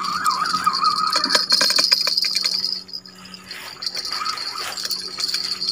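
Spinning reel being cranked fast, its gears rattling in quick ticks as a hooked fish is reeled in, stopping about three seconds in.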